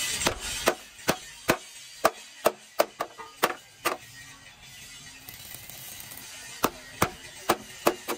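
Hammer blows on the steel plate of a truck chassis rail, about two to three a second: a run of ten, a pause of nearly three seconds, then four more.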